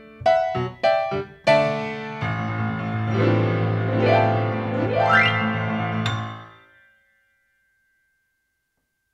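Grand piano playing the closing bars of a piece: short, separate chords, then a held low chord under two quick upward glissandos. The last chord fades out about seven seconds in.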